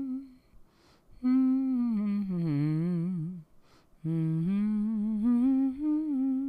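A woman humming a tune in two long phrases with a short pause between them, the pitch wandering slowly up and down.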